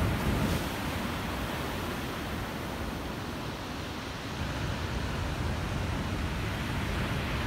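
Stormy sea surf breaking and washing up a pebble beach as a steady rushing noise with a deep rumble, loudest as a wave crashes at the start and swelling again a little after halfway.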